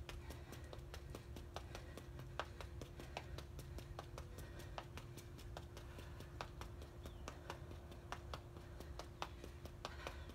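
Sneakers tapping quickly on a concrete patio in running footwork, about four or five light taps a second, as the feet step forward and back in a small square.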